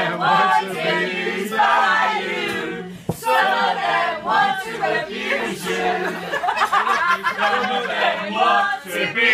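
A group of people singing together without accompaniment, many voices overlapping and holding a low note.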